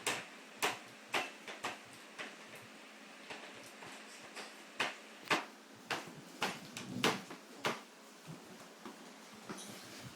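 A baby making a string of irregular short clicks and taps, about a dozen sharp ones, loudest and closest together between about five and eight seconds in.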